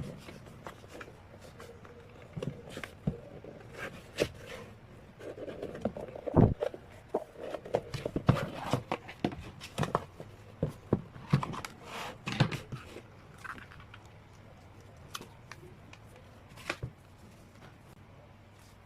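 Handling and unwrapping of sealed K-pop CD albums: rustling, scraping and a run of clicks and taps from plastic wrap, cardboard and booklets, busiest in the middle.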